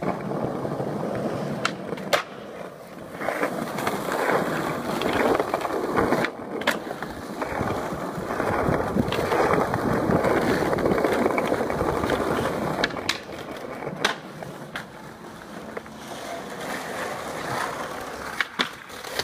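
Skateboard wheels rolling over stone paving, a continuous rough rumble that grows louder in the middle, with a few sharp clacks of the board.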